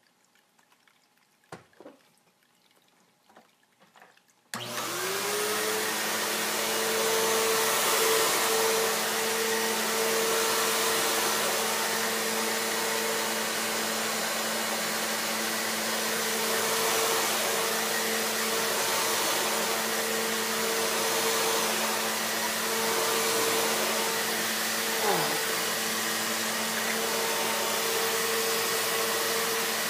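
Eureka Boss vacuum cleaner switched on about four and a half seconds in, its motor spinning up with a rising whine, then running steadily while it vacuums baking soda off carpet. A few faint handling clicks come before it starts.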